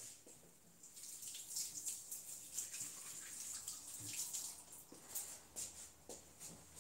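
Faint, irregular splashing and wet rubbing with water, starting about a second in: spilled hair dye being cleaned off.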